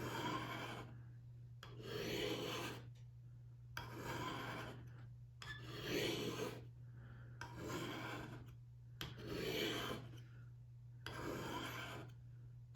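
Multitool knife blade drawn down the alumina ceramic rods of a Lansky Turnbox sharpener in slow, even strokes, each a scraping rasp about a second long, roughly one every two seconds, six in all. A steady low hum runs underneath.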